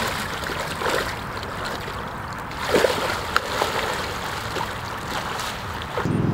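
Water splashing and sloshing as a man wades waist-deep into a river and then swims out through it. A steady hum comes in near the end.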